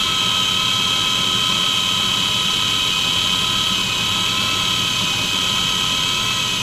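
Magnetic drill's electric motor running with a steady high-pitched whine.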